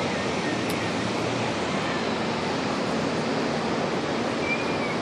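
Steady rushing of wind and churned water, heard from the deck of a large ship under way.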